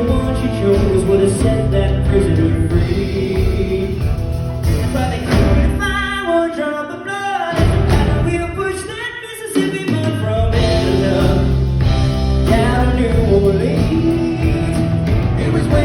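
Live band playing a country song with a male singer. Around the middle the singer sings a vocal run without clear words while the bass drops out for a few seconds. The full band comes back in about ten seconds in.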